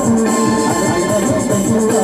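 Live Santali band music: electronic keyboards playing a held melody over a steady drum beat.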